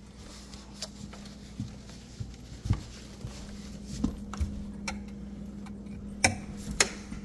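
A handful of light, sharp clicks and knocks spaced a second or so apart, over a steady low hum.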